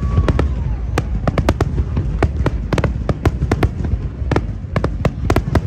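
Fireworks display: a rapid, irregular run of sharp bangs and cracks over a continuous low rumble of distant bursts.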